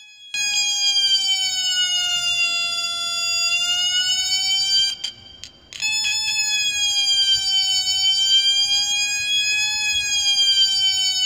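A homemade two-555-timer siren circuit sounds through a small 8-ohm speaker. It gives a loud, buzzy electronic tone that slowly wails down and back up in pitch. About five seconds in it cuts out for under a second with a couple of clicks, then comes back with the same slow wail.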